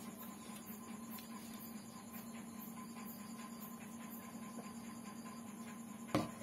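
A glass mug set down on a table with one sharp knock near the end, over a steady electrical hum and faint regular ticking about twice a second.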